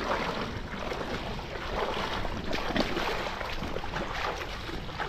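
Water splashing in a small river: a steady run of small, irregular splashes over running water.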